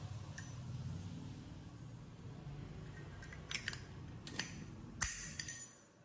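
Zippo lighter's metal case and insert clicking and clinking as the insert is handled and seated back in the case. Several sharp metallic clicks come in the second half, the loudest about five seconds in.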